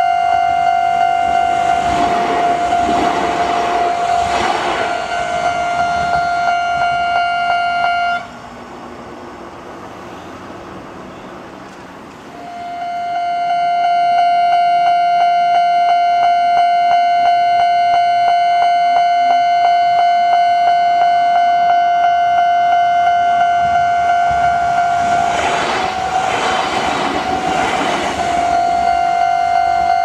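Japanese level-crossing warning bell ringing a steady, repeating clang, with the noise of a Kintetsu train passing the crossing twice. The bell stops about eight seconds in and starts again about four seconds later.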